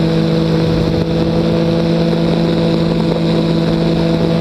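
Weight-shift trike's engine and pusher propeller running at a steady, even drone in flight, with air rushing over the microphone.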